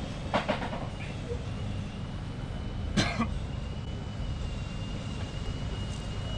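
Steady low rumble of motorbike engines running in the background, with a faint steady high whine. There are a few light clicks near the start and one sharp knock about three seconds in.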